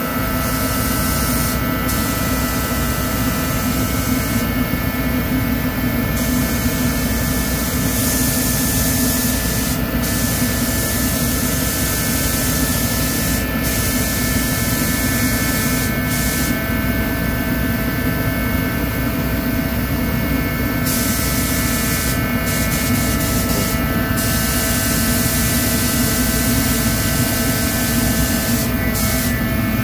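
Forced-air torpedo heater running with a steady drone and hum, while a paint spray gun's air hiss cuts in and out every few seconds.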